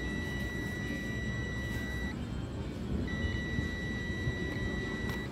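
UNI-T clamp meter's continuity tester beeping as its probes touch points on the air conditioner's circuit board: two long steady high beeps of about two seconds each, a second apart, showing the points are connected.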